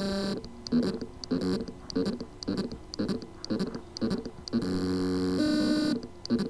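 Western Digital 3 TB Green hard drive's spindle motor buzzing and pulsing as it tries to spin up and fails to reach full speed, the sign of loose motor contacts on its circuit board. A steady buzzing tone with several pitches sounds at the start and again about four and a half seconds in, and between the two a rhythmic pulse repeats about twice a second.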